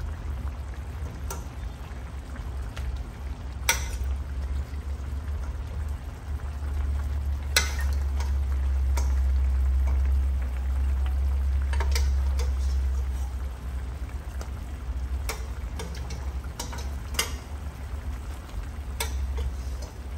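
Metal spoon clinking and scraping against a stainless steel pot as boiled beef chunks are lifted out and dropped into a wok of simmering sauce: a handful of sharp, scattered clinks over a faint sizzle and a low steady hum.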